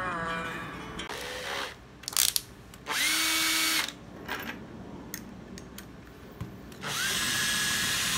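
12-volt cordless drill-driver driving a screw into wood in two short runs, one of about a second and one of nearly two seconds. Each run has a steady motor whine that starts and stops cleanly. A few sharp clicks come shortly before the first run.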